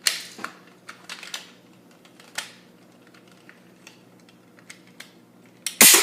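Scattered plastic clicks and knocks from parts of a Nerf blaster being handled and pried apart. Near the end, a sudden loud snap as the blaster's large internal spring lets go and shoots a part out.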